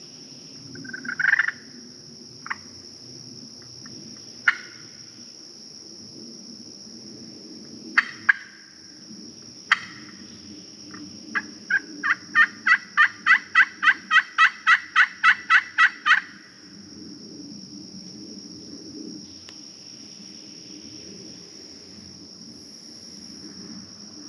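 Wild turkey gobbling about a second in, then a run of yelps, about four a second for some four seconds. The hunter takes it for a gobbler, possibly a jake.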